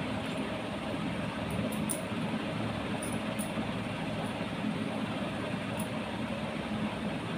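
A steady mechanical drone that holds even throughout, with a low hum under it.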